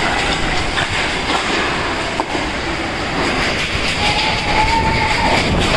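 Storm-force wind blowing hard and steadily with heavy rain, with a brief whistling tone about four seconds in.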